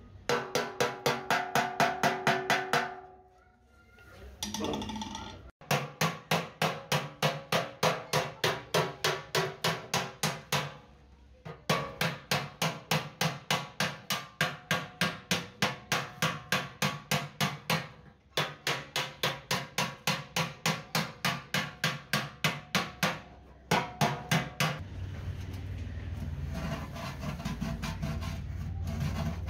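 Hammer tapping rapidly on the welded seam of a sheet-steel motorcycle fuel tank, about four to five blows a second in long runs with short pauses, each blow leaving the thin metal ringing. Near the end the hammering stops and a steady scraping rub takes over.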